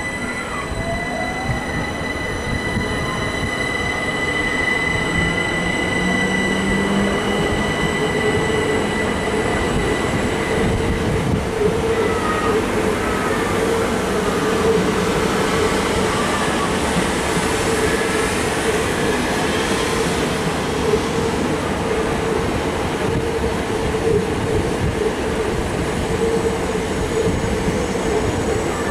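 Southeastern Class 375 Electrostar electric multiple units running through the station with wheel-on-rail rolling noise. A steady high electric whine fades away over the first ten seconds, while a second unit rolls past with a steady hum that builds up and stays.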